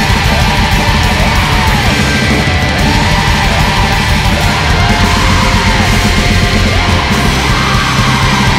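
Loud, dense heavy-metal-style music, with a line that swoops up and down in long arcs every second or two.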